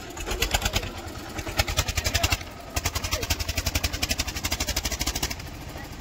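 Tractor diesel engine running with a loud, fast, even chugging beat. It stops briefly a little over two seconds in, picks up again, and eases to a lower, steadier note near the end.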